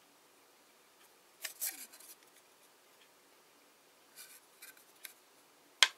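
Hands handling a 3D-printed plastic case part: brief scraping and rustling of plastic against fingers, about a second and a half in and again about four seconds in, then a sharp click near the end.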